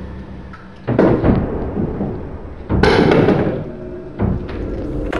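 Three loud bangs about a second and a half apart, each ringing out for a moment after the hit.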